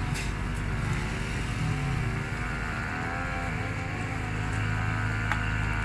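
An engine running steadily nearby, a continuous low drone that wavers slightly in pitch.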